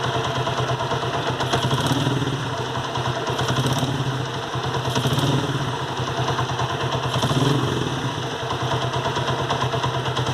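Honda CG Today 125 single-cylinder four-stroke engine idling steadily with a mechanical clatter from the valve gear, which the owner takes for worn rocker arms catching on the camshaft.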